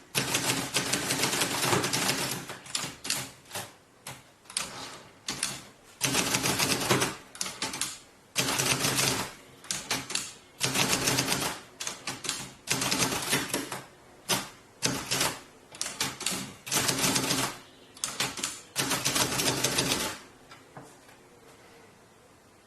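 Typewriter keys being struck in quick runs of typing with short pauses between them; the typing stops about twenty seconds in.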